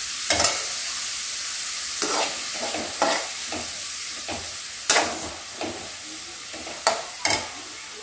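Chopped onions and ginger-garlic paste frying in oil in an aluminium kadai, sizzling steadily while a steel slotted spoon stirs and scrapes the pan, with a sharp scrape or knock every second or so. The sizzle grows gradually quieter.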